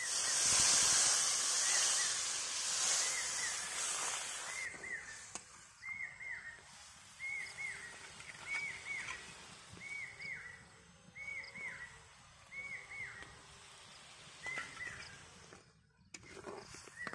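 Water added to hot masala in an iron kadai sizzles loudly, dying away over the first four seconds or so. Then a chirping animal call, two quick notes, repeats about every second and a half.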